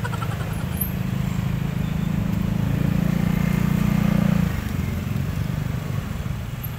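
Slow road traffic of motorcycles and cars, their engines running low and steady, with one engine note growing louder from about three seconds in and dropping away at about four and a half seconds.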